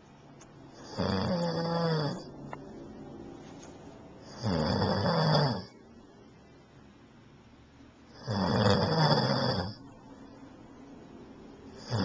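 A sleeping man snoring: three loud snores about every three and a half seconds, each lasting a little over a second, with quieter gaps between.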